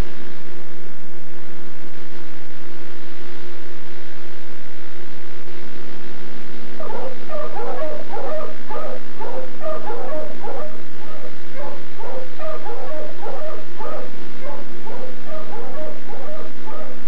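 A dog yapping and whimpering in quick repeated calls, starting about seven seconds in, over a steady low hum.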